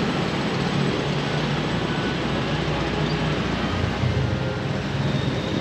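Steady road-traffic noise: vehicles passing, a continuous rushing hiss over a low engine hum.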